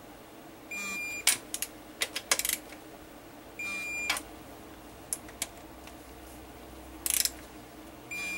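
Digital torque wrench giving a short, high beep three times, each as a transmission pan bolt reaches its 15 ft-lb setting. Sharp clicks of the wrench and socket come between the beeps.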